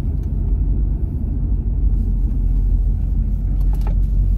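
Steady low rumble of road and engine noise inside a Chevrolet Corvette's cabin while driving.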